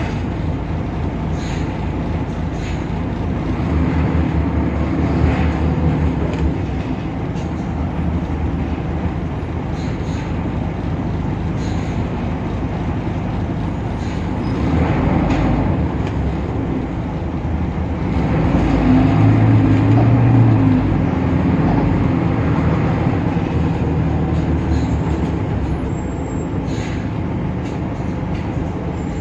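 Temsa Avenue LF city bus driving, its DAF PR 228 diesel engine running steadily with scattered light rattles and clicks. The engine grows louder for a few seconds around 4 s, 15 s and 19 s in.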